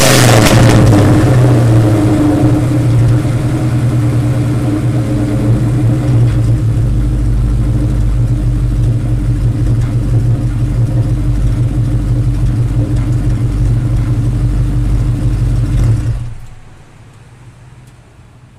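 2003 Mustang Cobra's supercharged 4.6-litre DOHC V8, breathing through MAC long-tube headers, a 3-inch H-pipe and mufflers. It drops back from a rev and idles steadily, then shuts off about sixteen seconds in.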